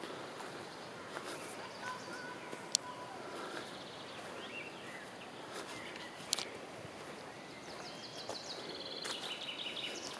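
Woodland ambience: a steady background hush with birds calling, ending in a quick run of repeated high chirps. Two sharp clicks stand out, one a few seconds in and one past the middle.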